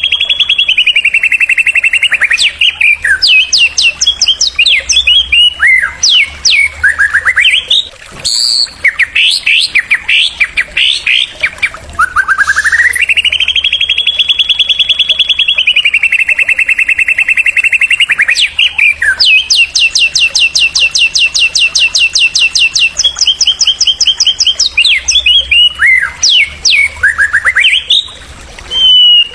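Male white-rumped shama singing loudly. It gives long, fast trills of repeated notes, one held for about three seconds midway, between whistled sweeps that rise and fall, and a rapid chattering run of notes later on.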